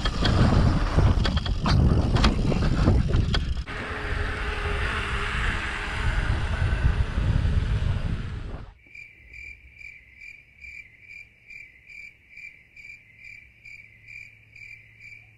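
Wind rushing over the microphone of a mountain bike riding fast down a dirt trail, with rattling knocks from the bumps. About nine seconds in this cuts off abruptly, leaving a cricket chirping faintly in a steady rhythm, about two chirps a second.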